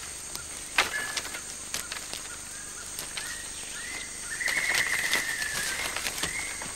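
Rainforest canopy sounds: a short whistled animal call repeated over and over, with sharp snaps and crackles among the branches. The loudest snap comes about a second in.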